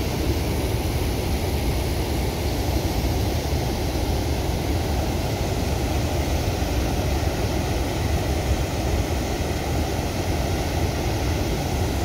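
Muddy river water pouring over a low concrete weir and churning below it: a steady rushing noise.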